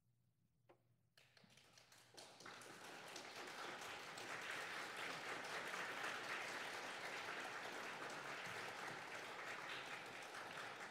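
Audience applauding: after about a second of near silence the clapping starts, builds quickly, and holds steady.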